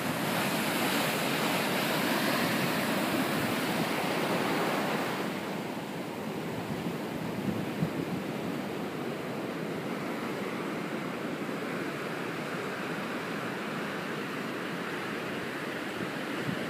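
Ocean surf breaking and washing up the beach, a steady rushing noise that is louder for the first five seconds or so and then settles lower.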